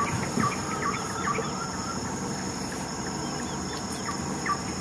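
Rainforest ambience: a steady high-pitched insect drone, with repeated short falling bird chirps, several a second, thickest at the start and again near the end.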